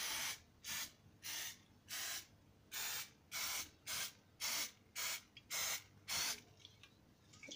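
Aerosol can of Crisco Butter No-Stick Spray giving about eleven short hissing squirts, roughly two a second, as cooking oil is sprayed into the cups of a muffin tin to keep the dough from sticking. The squirts stop about six and a half seconds in.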